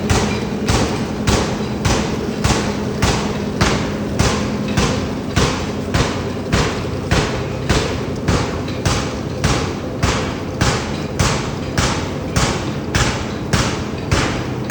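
Forging hammer striking hot steel in a steady rhythm, about two blows a second, each blow with a short ring, over a faint machine hum.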